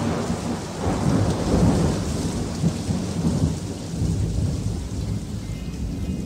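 Recorded thunderstorm: steady rain with rolling, swelling thunder, the sound-effect opening of a pop record. A few faint musical tones come in near the end.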